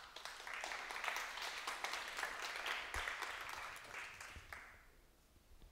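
Audience applauding at the end of a talk, a dense patter of many hands clapping that dies away about five seconds in.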